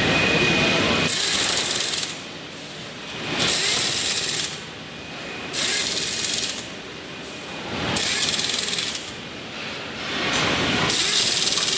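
Lightweight pneumatic impact wrench hammering in short bursts of about a second, about five times with brief pauses between, as it runs down fasteners.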